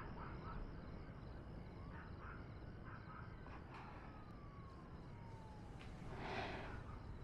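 Faint, steady low background rumble, with a thin tone gliding slowly downward through the middle, like a distant siren winding down, and a short rush of noise about six seconds in.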